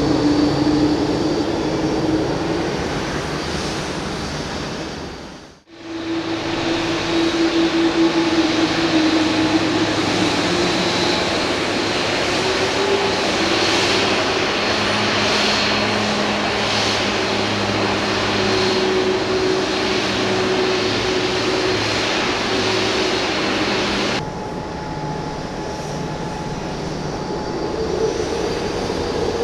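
Boeing 787 high-bypass turbofan engines running at idle power, a steady rumble with a high whine and several steady tones. The sound drops out briefly about six seconds in and changes abruptly again about 24 seconds in, where one recording is cut to another.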